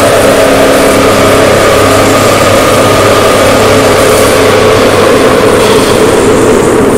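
Harsh noise music: a very loud, steady wall of distorted noise, with a low hum and a few faint held tones buried in it.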